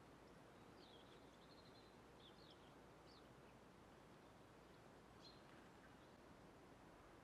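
Near silence: a steady faint outdoor hiss with a few faint, high, short chirps of small birds, several in the first few seconds and one more about five seconds in.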